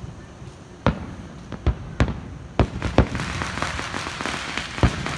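Fireworks going off: about half a dozen sharp bangs, unevenly spaced, with dense crackling building from about three seconds in.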